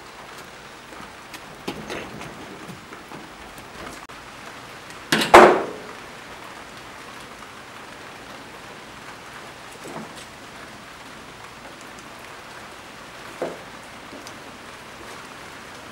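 Handling noise from working a rubber boot onto a steering rack at a workbench: a steady light hiss with a few soft knocks, and one loud short clatter about five seconds in.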